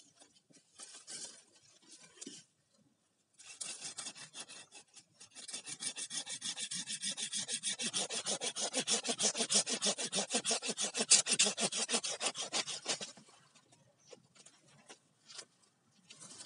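Hand saw cutting through a bamboo stem with rapid, even back-and-forth strokes, several a second. It starts a few seconds in and stops a few seconds before the end, with lighter rustling and taps around it.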